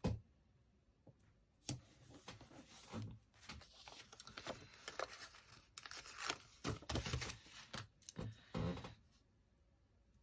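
Paper sticker sheet rustling and crackling as stickers are peeled off their backing and pressed onto planner pages, in faint irregular bursts. It goes quiet for about the last second.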